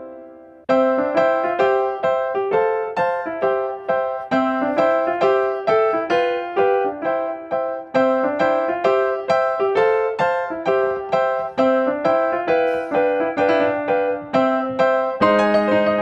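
Background music: a light electric-piano tune of quick, evenly spaced notes that pauses briefly at the start, with lower notes coming in near the end.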